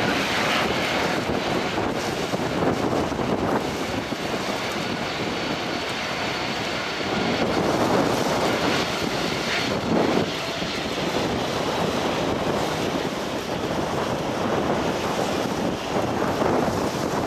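Boeing 737-800's CFM56-7B turbofan engines running at taxi power as the jet rolls past: a steady jet whine over a broad rush, with wind buffeting the microphone.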